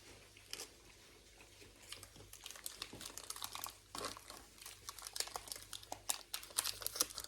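Crinkling and rustling of something handled close to the microphone, a run of small sharp crackles that grows busier toward the end.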